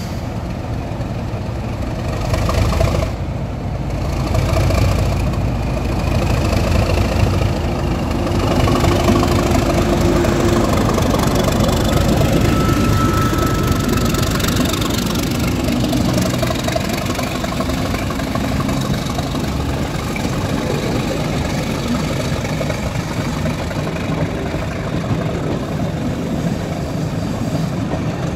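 Class 37 diesel locomotive 37516, with its English Electric V12 engine, running as it hauls its train past close by. It grows louder as the locomotive draws level about halfway through and eases as it moves on and the coaches roll past.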